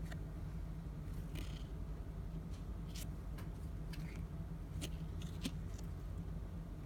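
Trading cards being handled and flipped through by hand: a few brief clicks and short rustles of card stock, over a steady low hum.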